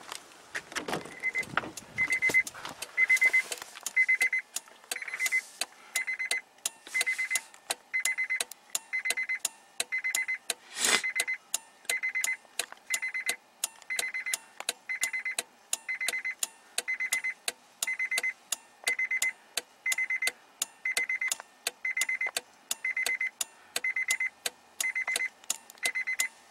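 Electronic beeping, about one short beep a second, over rapid, uneven clicking from 90-watt xenon hide-away strobes firing. One louder knock about eleven seconds in.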